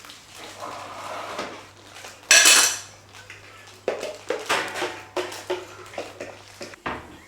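Dishes and cutlery clattering, with one loud ringing clang a little over two seconds in, then a run of sharp clinks and knocks.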